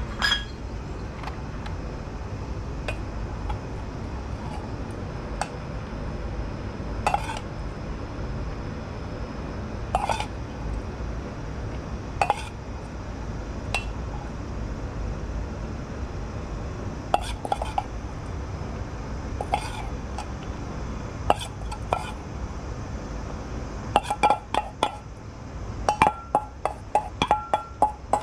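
Stainless steel mixing bowl clinking as it is handled and tapped: scattered single clinks, then a quick run of ringing taps in the last few seconds, over a steady low rumble.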